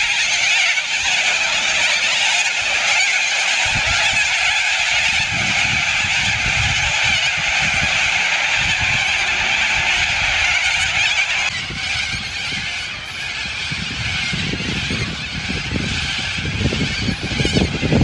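A huge flock of white cockatoos screeching all at once: a dense, continuous, harsh din of overlapping calls.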